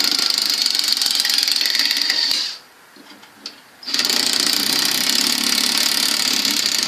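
Power tool running with a fast rattling buzz. It stops about two and a half seconds in and starts again about a second and a half later.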